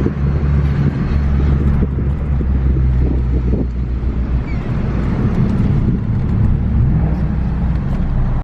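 Steady low engine and road hum heard while driving a Ford Focus ST fitted with a hybrid turbo, its turbocharged 2.0-litre four-cylinder running at a steady cruise, with the engine note wavering slightly up and down in the second half.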